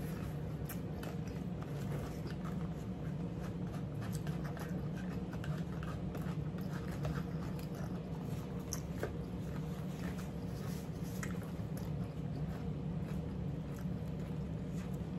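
Two people chewing cucumber salad, with many small crunches and clicks of forks against paper plates, over a steady low hum.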